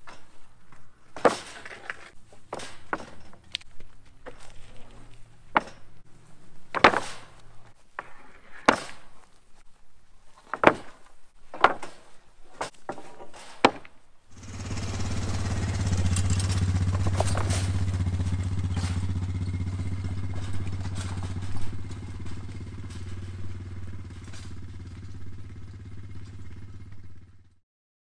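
Sawn cedar boards knock and clatter, about eight sharp knocks in the first half, as they are stacked onto a steel mesh utility cart. About halfway through, a small engine starts abruptly and runs steadily with a low hum, growing fainter before it cuts off near the end.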